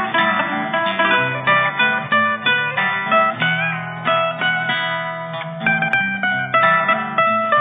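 Acoustic guitar played solo: chords sounded in a steady rhythm, with a fresh strike every fraction of a second.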